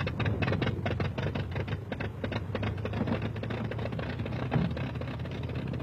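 De Havilland Chipmunk's four-cylinder Gipsy Major engine running at low speed, firing with rapid uneven pops over a steady low hum, the pops thinning out after about three seconds.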